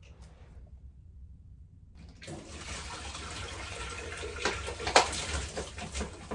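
Carbonated soda being poured out of a plastic bottle into a kitchen sink. A steady splashing pour starts about two seconds in, with a few louder splashes along the way.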